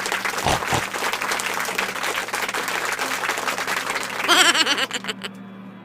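Canned applause: a crowd clapping, a dense patter of hand claps. About four seconds in it gives way to a short, louder sound effect with a wobbling pitch, and then the clapping stops.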